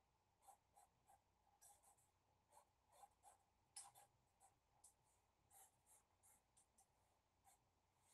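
Felt-tip marker colouring on paper: faint, short scratchy strokes, about two a second and unevenly spaced.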